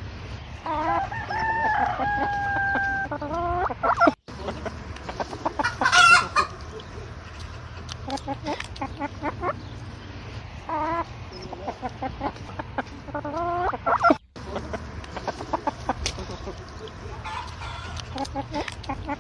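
Chickens clucking, with a rooster crowing once about a second in and a louder squawk a few seconds later. The sound drops out for a moment twice, where clips are joined.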